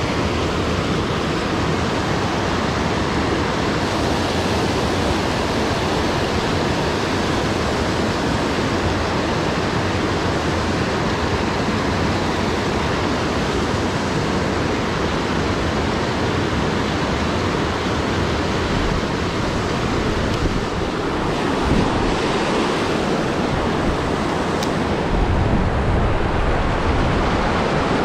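Mountain creek water rushing over rocks in a steady, loud rush, with a low rumble of wind on the microphone coming and going near the end.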